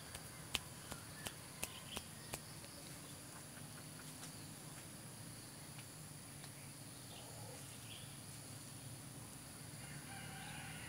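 Rooster giving faint, soft clucks, mostly near the end, after a quick run of about seven sharp clicks in the first couple of seconds.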